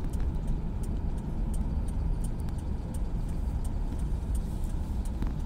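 Car cabin noise while driving on a wet road: a steady low rumble of engine and tyres, with scattered faint ticks.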